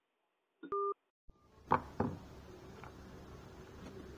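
Short electronic beep from a smartphone as the call is ended, a single two-tone pip lasting about a quarter second. About a second later come two sharp knocks, then a low steady background hiss.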